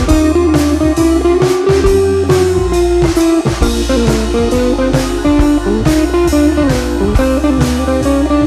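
Background music: a bluesy guitar tune with bass and drums keeping a steady beat.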